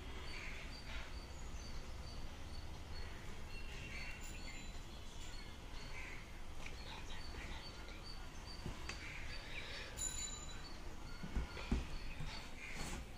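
Quiet handling of an Axor motorcycle helmet and its plastic packaging: a sticker peeled off the visor, soft rustling, and a few light knocks near the end. Faint small chirps repeat in the background, like birds outside.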